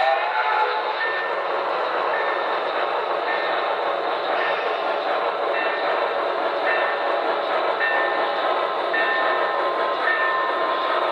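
Model Reading T-1 4-8-4 steam locomotives running with steady, noisy steam-locomotive sound, and a bell-like ringing tone repeating about once a second.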